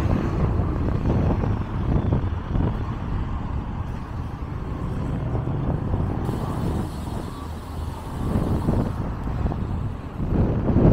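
Orion VII diesel transit bus under way, its engine and road noise running as a steady low rumble, heard on board. The rumble eases off mid-way and builds again near the end.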